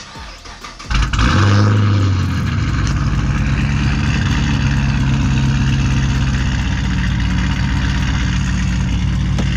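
Pontiac G8 GT's V8, fitted with longtube headers and a straight-pipe exhaust, cold-started: a brief crank, the engine catches about a second in with a loud flare of revs, then settles into a steady, loud fast idle.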